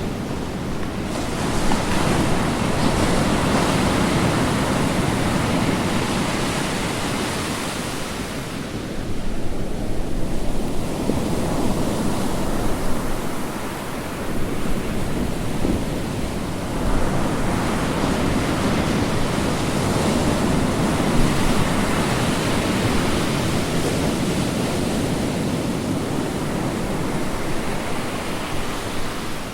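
Ocean waves breaking and washing on a shore, a continuous hiss that swells as new breakers come in, about 1, 9 and 17 seconds in, and eases between them.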